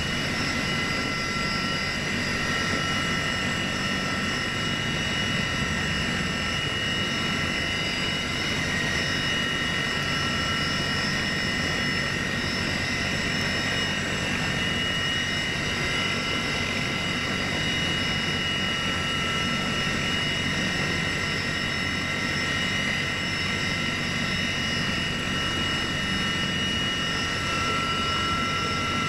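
Heavy transport helicopter running, heard from inside its cabin at the open cargo-hook hatch: a loud, steady rush of rotor and engine noise with several high, steady whining tones over it.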